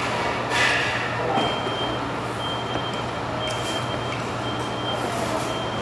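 A high electronic beep, one steady tone, repeating about once a second from about a second and a half in, over steady room noise and a low hum. A brief clatter sounds just after the start.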